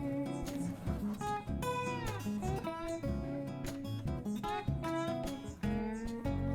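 Background music: plucked acoustic guitar notes, some with pitch bends.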